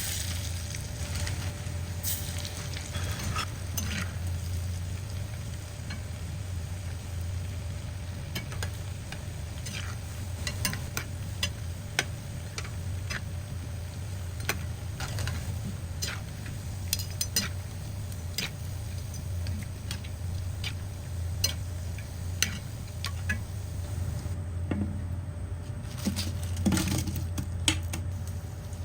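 Food sizzling in a pan while a metal spatula or spoon stirs, scraping and tapping against the pan in short irregular clicks, over a steady low hum.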